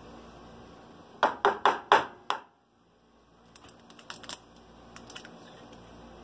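Five sharp clicks in quick succession a little over a second in, then lighter scattered clicks: a utensil knocking and scraping against a ceramic bowl of cracked raw eggs while eggshell is fished out.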